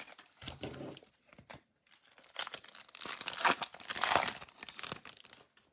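Foil wrapper of a Topps Holiday baseball card pack being torn open and crinkled. The crackling is faint at first and loudest in the middle, as the foil is ripped apart.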